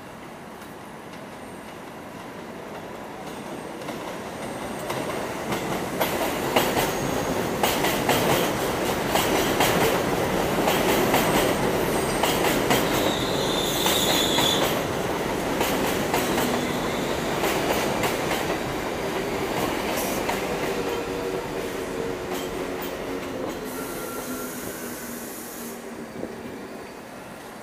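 R62A subway train pulling into an elevated station and braking to a stop. It grows louder as it approaches, with rapid wheel clicks over the rail joints and a brief high wheel squeal about halfway through. The motor whine then falls in pitch as the train slows, and a short hiss comes near the end as it stands.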